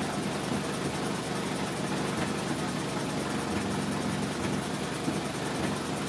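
2003 Toyota Corolla's four-cylinder engine idling with a steady hum and a sputter, the sign of a misfire on cylinder number 1 that has not yet set a code.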